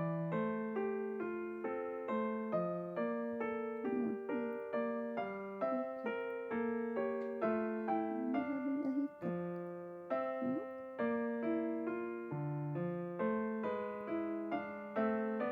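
Background piano music, a steady run of notes about two a second.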